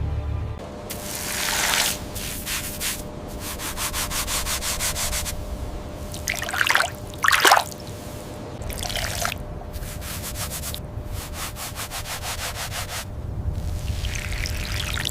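Abrasive rubbing strokes on a hard surface, in spells of fast, even back-and-forth strokes, with two quick downward-sweeping swishes around the middle.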